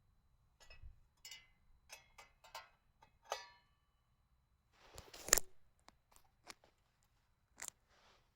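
Gear being handled at close range: a run of small clicks and rustles, a louder knock with a rustle about five seconds in, then a few scattered clicks.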